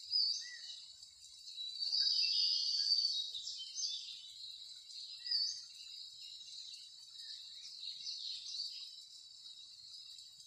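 Clear plastic sheet crinkling and rustling as hands press and shape a ball of kebab mixture inside it, in irregular louder bursts.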